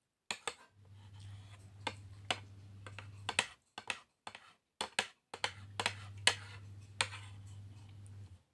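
A plastic spoon tapping and scraping against a compartment plate as rice is scooped up, giving a string of irregular sharp clicks. A low steady hum comes and goes under them.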